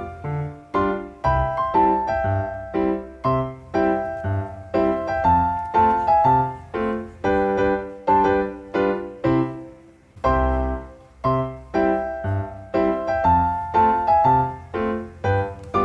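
Background piano music: a steady melody of struck notes, about two to three a second, each fading after it is played, with a brief lull about ten seconds in.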